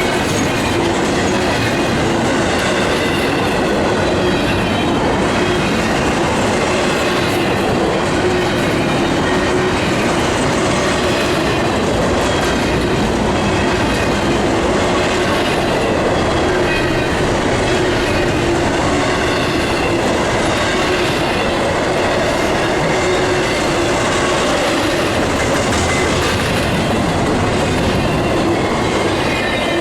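Intermodal freight train cars rolling past close by: a loud, steady rumble and rattle of steel wheels on rail, with a faint held squeal from the wheels.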